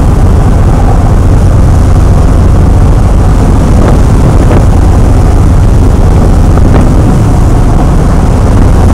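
Motorboat underway through rough water: a steady engine drone mixed with rushing water and a heavy low rumble of wind on the microphone.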